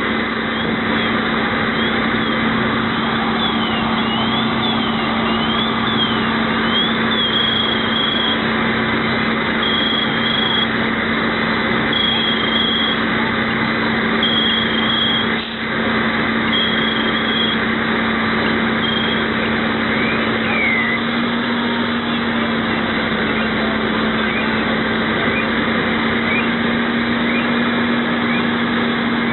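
Fire engine's motor running steadily with a constant low drone. Over it, a high electronic tone wavers rapidly up and down for the first several seconds, then gives way to evenly spaced high beeps about every two and a half seconds, which stop about halfway through.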